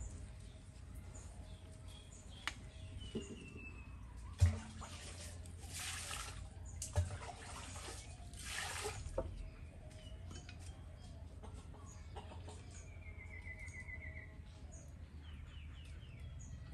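Water poured into a large clay basin in two short pours, with a couple of light knocks from handling the vessels. Birds chirp and trill now and then.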